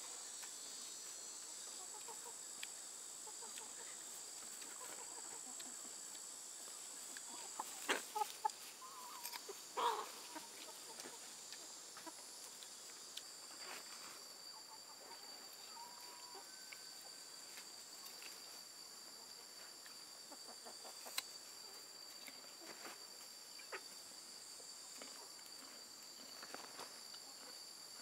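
Chickens clucking over a steady high-pitched insect drone, with a short run of louder clucks about eight to ten seconds in.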